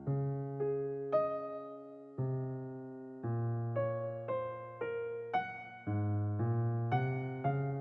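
Background music: soft keyboard chords, each struck and left to fade, a new one every half second to a second.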